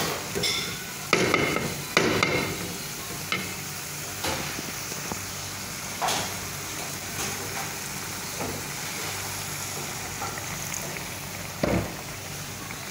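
Wooden spatula stirring bitter melon and egg in a stainless steel pan, the food sizzling steadily underneath. Several sharp scrapes and knocks of the spatula against the pan stand out, the loudest about a second in, about two seconds in, and shortly before the end.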